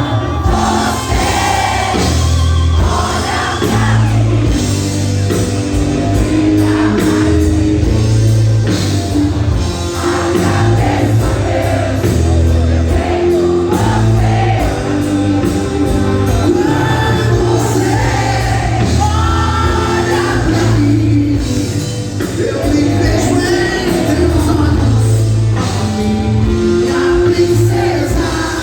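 A song playing: voices singing over a band with a steady bass line.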